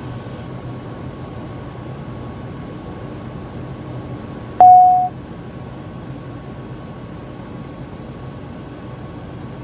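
Steady in-flight cockpit noise of a Cirrus SF50 Vision Jet, with one short, loud electronic beep at a single pitch about halfway through.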